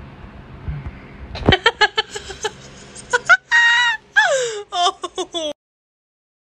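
A young woman laughing hard: quick bursts of laughter begin about a second and a half in, rise to a held high-pitched squeal and then a falling cry, and cut off suddenly about five and a half seconds in.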